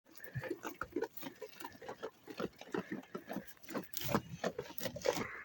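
Sheep eating wheat: rapid, irregular crunching and chewing, several bites a second.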